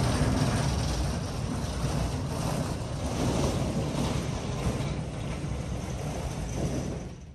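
Casters of a wheeled engine-stand rotisserie rolling over concrete as it is pushed, a steady rumble mixed with wind noise on the microphone, cutting off about seven seconds in.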